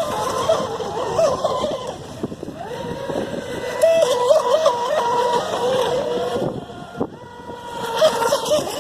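Electric RC racing boats running on 3S power: a motor whine that steps up and down in pitch with the throttle over water and wind noise. It drops away briefly about seven seconds in, then returns.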